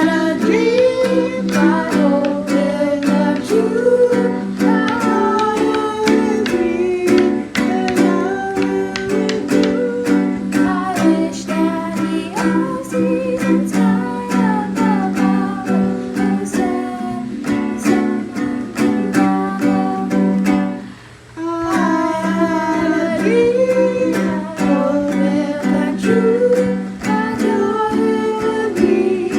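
A ukulele strummed in a steady rhythm with a voice singing along, stopping briefly about two-thirds of the way through before carrying on.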